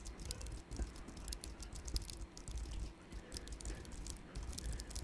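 Typing on a computer keyboard: a quick, irregular run of keystrokes as a sentence is typed out.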